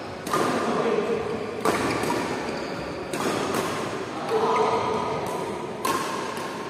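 Badminton rackets striking a shuttlecock in a rally, about five sharp cracks a second or so apart, each echoing in a large indoor hall.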